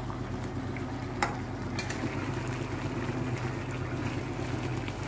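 Vegetable curry simmering in a non-stick pan on the stove, stirred with a metal spatula, over a steady low hum. A sharp tap of the spatula on the pan comes about a second in.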